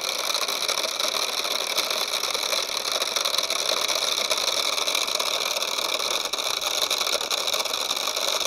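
MJX X102H quadcopter's brushed motors and propellers whirring steadily at idle while it sits on the ground. The motors are stuck at idle: the transmitter is not shutting them off.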